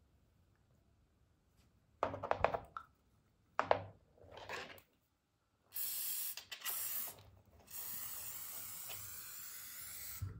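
Small steel gun parts clinking and knocking together as they are handled, then a WD-40 aerosol can hissing as it sprays lubricant onto them: a couple of short bursts, then one long steady spray.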